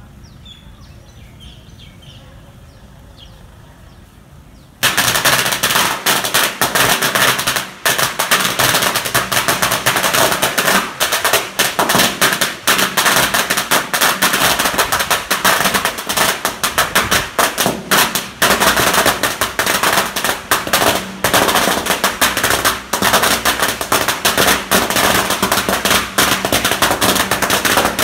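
A long string of firecrackers going off in a rapid, unbroken crackle of bangs, starting suddenly about five seconds in after quiet outdoor ambience.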